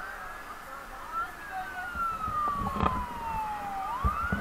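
Electronic siren wailing: a quick rise in pitch, then a slow fall lasting about three seconds, rising again near the end. A few dull knocks come in the second half.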